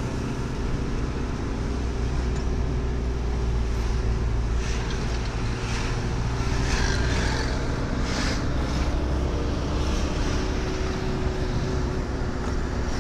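Engine and road noise of a moving vehicle heard from inside the cabin, a steady low drone, with a few brief rushes of noise around the middle.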